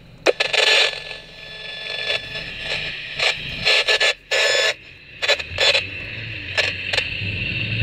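Steelman wireless ChassisEAR receiver's speaker giving about a dozen irregular bursts of crackling static and scraping over a steady high-pitched whine, while the unit's channel is switched from the passenger-side wheel sensor to the driver's-side one.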